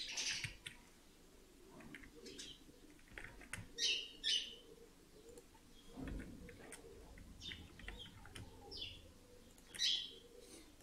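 Faint short bird chirps, about six of them spaced irregularly, over quiet room tone with a few faint clicks.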